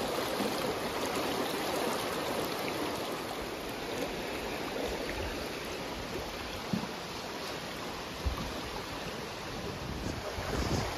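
Shallow, rocky creek water rushing and bubbling steadily over stones, with two brief thumps about seven and eight seconds in.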